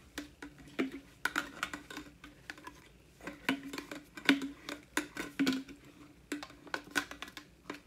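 Plastic water bottle being shaken and handled while paper inserts are worked out of it: an irregular run of clicks, light knocks and paper rustling.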